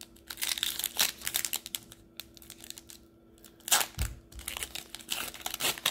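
Plastic foil trading-card pack wrapper crinkling and crackling as hands tear it open. There is a louder burst of crinkling with a soft bump about four seconds in.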